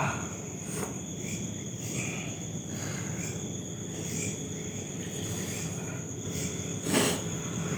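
Crickets chirping in a steady, high-pitched, continuous trill. A brief rustling knock about seven seconds in is the loudest sound.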